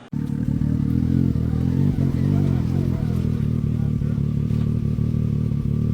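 Can-Am Maverick X3's turbocharged three-cylinder engine running through an RPM eValve exhaust with a Monster Mouth cat delete: a loud, steady, deep exhaust rumble.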